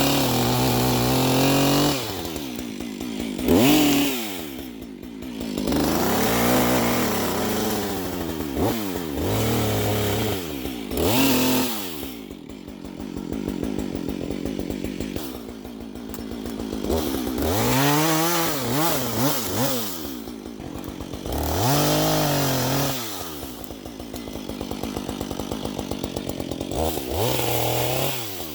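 Husqvarna 555 two-stroke chainsaw cutting brush and small trees. The engine revs up and drops back over and over as the throttle is opened and the chain bites into the wood.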